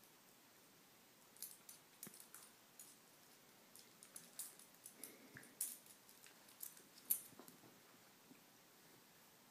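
Quiet, sparse jingling and clicking of a dog's collar tag as two small dogs play-wrestle, busier in the second half. A brief faint squeak comes about five seconds in.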